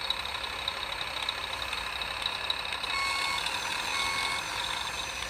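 Steady whir of radio-controlled trucks' electric drive motors and gearboxes, with a thin high whine, as the trucks work in sand. Two short reversing beeps from an RC truck's electronics sound about three and four seconds in.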